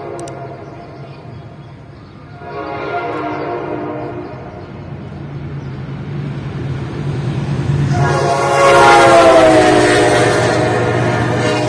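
Diesel locomotive hauling a passenger train through a station at speed, its engine a steady low drone growing louder as it approaches. Its air horn sounds twice: a short blast a couple of seconds in, then a long, loud blast from about two-thirds of the way through that bends slightly down in pitch as it goes by.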